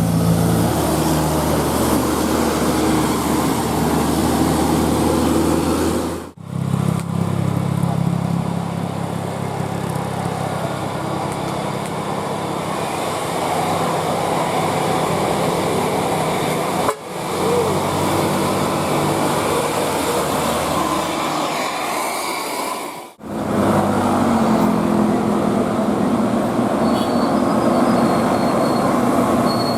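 Buses running in traffic with road noise, and now and then steady multi-note tones that step from pitch to pitch, as from a bus's multi-tone 'telolet' horn. The sound breaks off abruptly three times where one clip cuts to the next.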